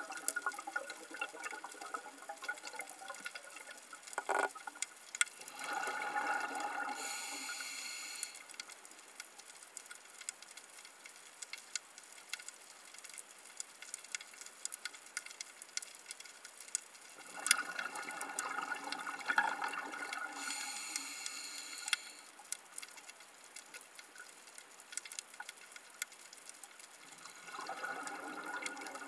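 Underwater sound of a scuba diver breathing through a regulator: a bubbling, hissing breath three times, roughly ten seconds apart, over a steady fine crackle of reef clicks.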